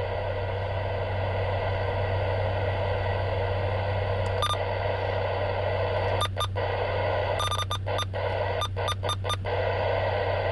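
Uniden Bearcat 980SSB CB radio receiving on AM with its RF gain turned down to 3: steady static hiss from its speaker over a low hum. From about six seconds in, the hiss is broken by a quick string of short blips and dropouts as the channels are stepped up.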